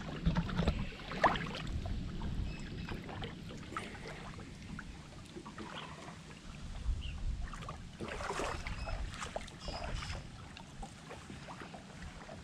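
Wind rumbling on the microphone outdoors, with scattered clicks and rustles of handling that are loudest in the first second and again about eight seconds in.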